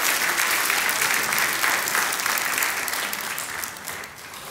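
Congregation applauding, a dense patter of many hands clapping that thins out and fades near the end.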